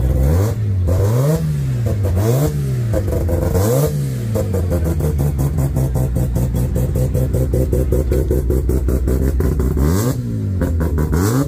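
Rotary engine of a third-generation Mazda RX-7 revved in four quick blips, then idling with a rapid, even pulse, and blipped once more near the end.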